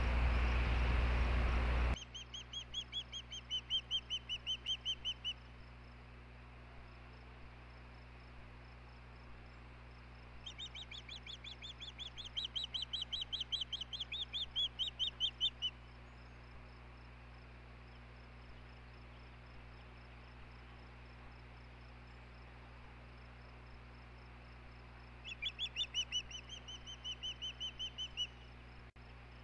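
Osprey calling in three bouts of rapid, high whistled chirps, about four a second, each bout lasting three to five seconds. Before them, a loud steady rushing noise cuts off abruptly about two seconds in, leaving a faint low hum.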